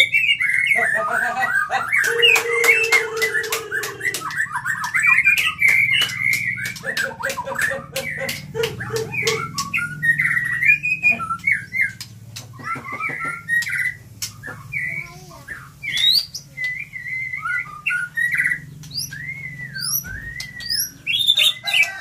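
White-rumped shama (murai batu) singing hard in a long, varied song: quick runs of whistles and chattering notes mixed with sharp clicks, then separate slurred whistles near the end. A steady low hum lies underneath.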